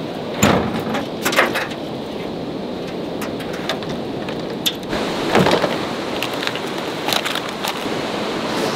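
Steady rushing noise of wind and surf, broken by scattered knocks and clatter of fishing rods and tackle being handled at a pickup truck's tailgate. A heavier thunk comes about half a second in, as the tailgate is lowered.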